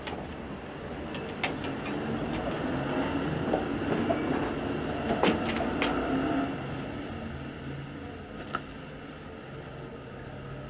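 Low rumble of a passing vehicle, swelling to its loudest a few seconds in and then fading, with a few sharp clicks and knocks over it.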